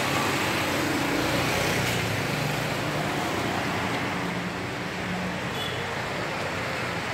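Steady hiss of tempe chips deep-frying in oil in a large wok, with a low hum underneath.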